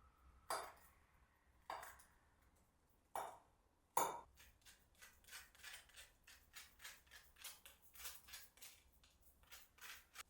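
Metal spoon clinking against a ceramic cup: four separate ringing clinks, the fourth the loudest, then a run of lighter, quicker clinks about three a second, as when stirring a drink.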